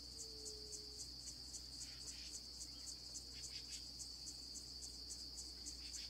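Faint, steady, high-pitched insect trill, pulsing about four times a second, like a cricket.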